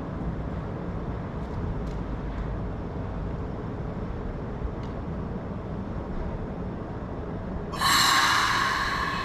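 Low steady rumble of a Keikyu train running, then about eight seconds in a sudden loud, shrill sound of several steady high tones at once that slowly fades.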